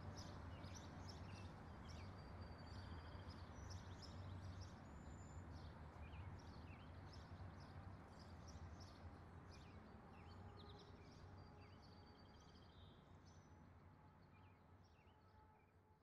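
Faint outdoor ambience of many small birds chirping, with short high chirps scattered throughout over a low steady hum, slowly fading out toward the end.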